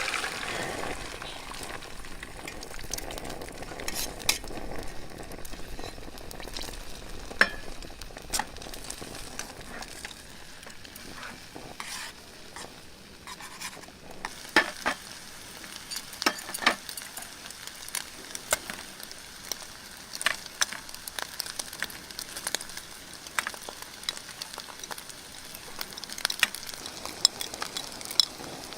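Food frying in a pan of hot oil: a loud sizzle at the start that settles to a steady hiss, with sharp clicks and scrapes of a utensil stirring now and then.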